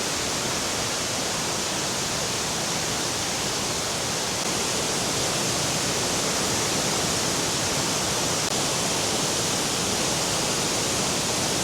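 Waterfall swollen by heavy rain, water pouring down from above in a steady rush that grows slightly louder about halfway through.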